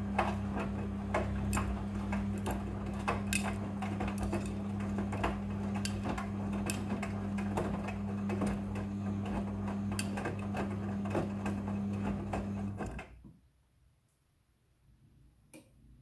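Midea front-loading washing machine tumbling a load of laundry: a steady motor hum with frequent irregular clicks and taps as the drum turns. About 13 seconds in the drum stops and the sound falls to near silence, with one faint click near the end.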